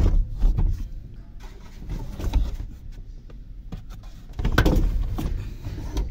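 Plastic knocks, rattles and rubbing as the heater and evaporator housing under the dashboard is tugged and worked loose, with a louder flurry of clunks near the end.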